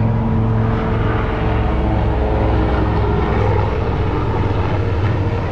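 A steady, loud engine drone with a low hum that holds unchanged throughout.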